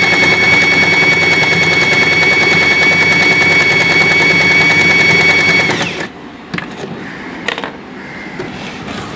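Usha Janome Excella electric sewing machine running at speed as it stitches cloth, a steady high motor whine that winds down and stops about six seconds in. A couple of light clicks follow.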